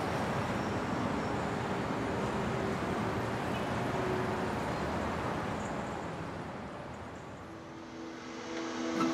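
Steady city traffic noise, an even rushing hum that eases down in the second half, with a held music tone coming in near the end.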